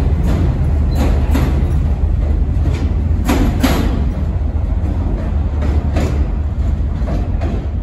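Subway pump train (a Kawasaki R65 pump car with gutted R17/R21/R22 reach cars) rolling out of the station, its wheels clicking and clacking over rail joints, some strikes in quick pairs, over a steady low rumble.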